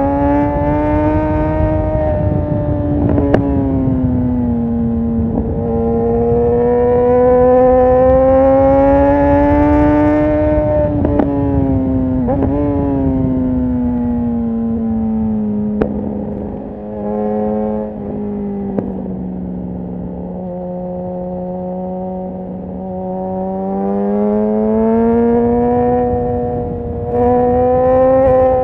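Suzuki GSX-R 1000 L2 inline-four through a Yoshimura R11 full exhaust, running at speed with its note rising and falling as the throttle is rolled on and off. Past the middle the revs sag lower and the engine goes quieter, then it pulls back up near the end, with wind rushing over the microphone.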